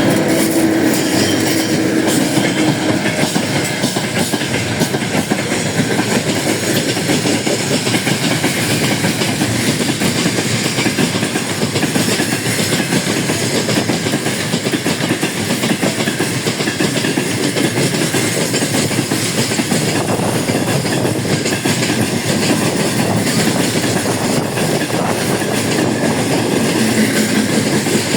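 Freight train hauled by a VL80S electric locomotive rolling past, its wheels running on the rails in a loud, steady noise.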